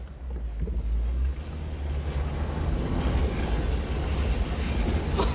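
Jeep Wrangler in four-wheel drive crawling over rocks, heard from inside the cabin: a deep engine and drivetrain rumble with the noise of tyres on rocky ground, getting louder through the second half.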